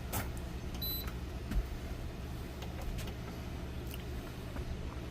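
A Tosot ductless RV air conditioner gives one short, high electronic beep about a second in as it takes a remote command and starts up, over a steady low hum, with a few faint clicks.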